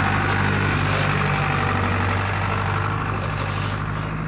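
Heavy diesel engine of construction machinery idling steadily, a low even drone; a hiss above it drops away near the end.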